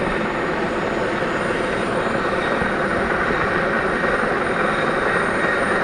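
Helicopter flying overhead: a steady rumble of rotor and turbine engine.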